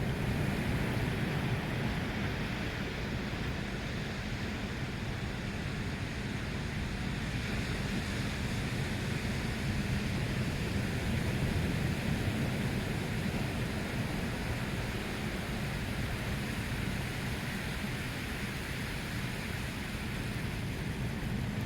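Sea surf: waves breaking and washing on the shore in a steady rush, with slow, gentle swells in loudness.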